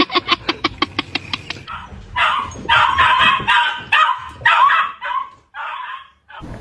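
A dog barking in a fast run of short yaps, about six a second, for the first second and a half, followed by several longer, rough, noisy bursts.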